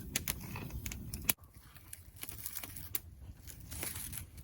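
Metal eating utensil clinking against a dish, a few sharp scattered clicks, the loudest about a second in.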